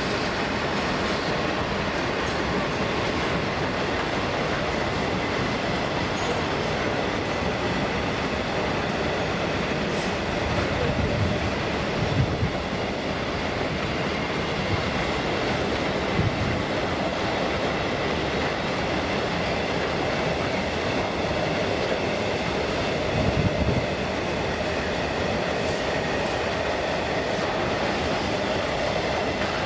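A train running past on the rails, a steady rumble and rush of wheels on track, with a few low thumps along the way.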